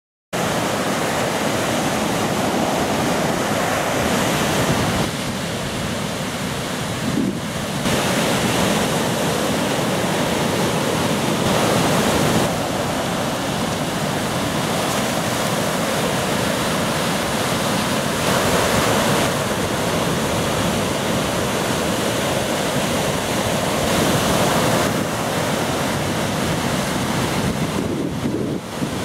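Ocean waves breaking and rushing, with wind buffeting the microphone. The roar shifts abruptly in level and tone several times.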